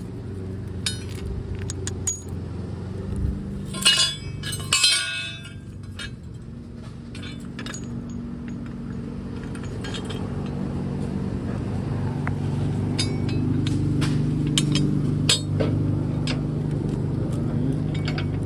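Metal clinks and clanks from mower blades and tools being handled, a loud cluster about four seconds in and more near the end, over a steady low engine hum that slowly grows louder.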